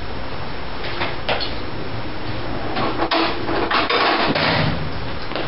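Small metal hand tools handled on a workbench: a few sharp clinks and knocks, then a cluster of rattling, scraping knocks about three to four and a half seconds in, over steady background noise.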